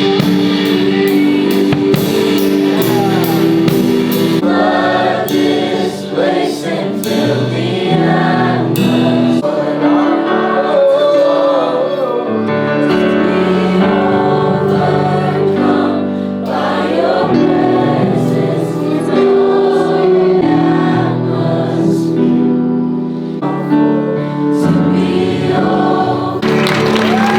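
Christian worship song with a group of voices singing together over sustained music.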